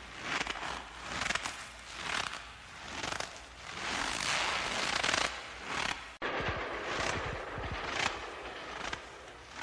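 Footsteps crunching through fresh snow at about one step a second, with a brief dropout about six seconds in.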